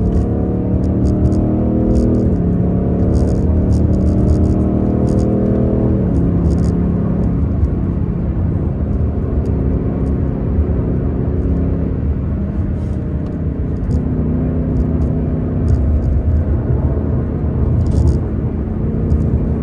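Ford Mustang GT 5.0 V8 exhaust on the move, recorded at the tailpipe. The engine note steps down in pitch about two seconds in and again about six seconds in, then settles into a lower, steady drone.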